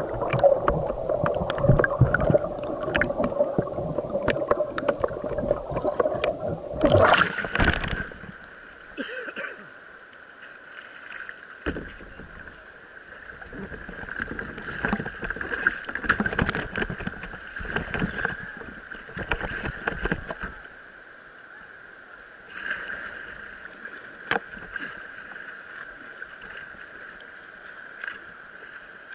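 Capsized kayak in whitewater: muffled churning and bubbling of the rapid, heard through the underwater deck-mounted camera, then a loud splash about seven seconds in as the kayak rolls upright and the camera breaks the surface. After that, quieter rushing river water with intermittent splashes against the camera.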